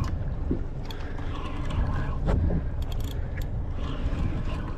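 Low wind rumble on the microphone and water moving around a small fishing boat, with a few faint clicks and scrapes from a rod and reel being worked against a hooked fish.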